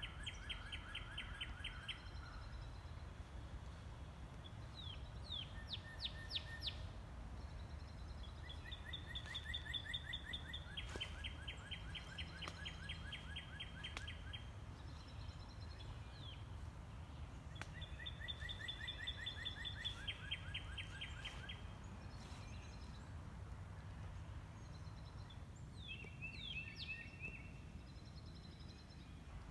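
Songbirds singing: several phrases of a held note breaking into a fast trill, with some quick rising sweeps, separated by short pauses, over a steady low rumble.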